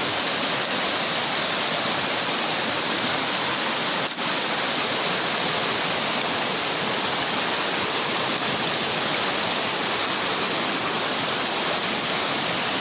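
Flash-flood water rushing steadily, a loud, even flow of runoff from a typhoon's overnight rain.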